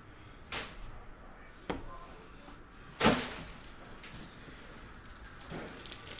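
Desk handling noises while a trading card is being put into a new top loader: a sharp click about half a second in, another just before two seconds, and a louder knock about three seconds in, then softer rustling.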